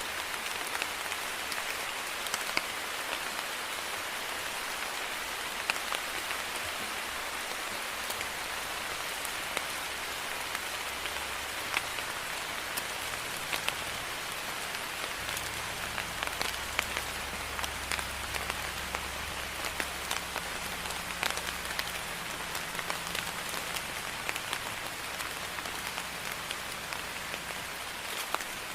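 Steady rain falling, with many distinct drops ticking sharply through the hiss. A faint low rumble sits underneath from about eleven seconds in until near the end.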